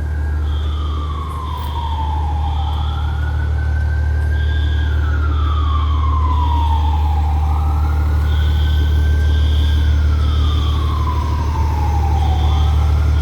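Fire apparatus siren wailing, rising and falling slowly about once every four to five seconds, over the steady low running of a heavy engine. A high beeping repeats in groups of three throughout.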